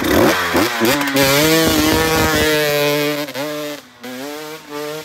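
Two-stroke dirt bike engine revving hard. The pitch climbs in the first second and holds high for a couple of seconds, then the throttle chops off about four seconds in and comes back on at a lower level.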